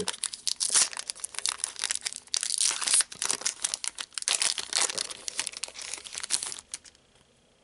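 Foil wrapper of a Pokémon TCG Detective Pikachu booster pack crinkling and tearing as it is opened by hand: a dense run of rustles and crackles that stops about a second before the end.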